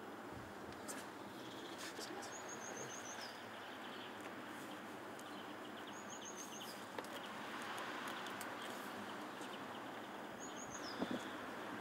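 Faint outdoor ambience in which a small songbird repeats a short, very high trill that drops at its end, three times about four seconds apart, with a brief knock near the end.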